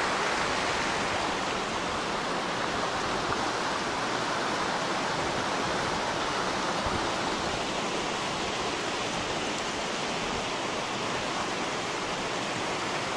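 A creek's water rushing steadily.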